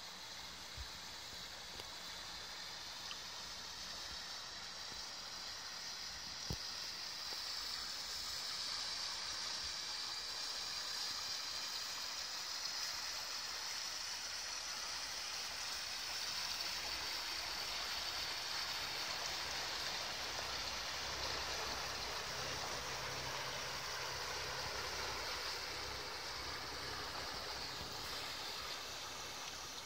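Motor cruiser's Volvo Penta inboard engine passing by: a low, steady drone rises in from about halfway and fades near the end. A steady rushing of water from the hull and wake runs throughout.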